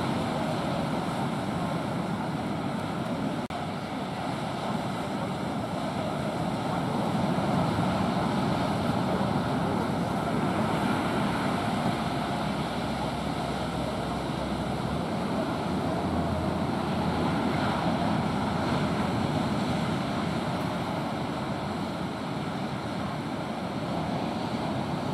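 Ocean surf breaking and washing up the beach, a steady rushing that swells and eases slowly, with wind buffeting the microphone.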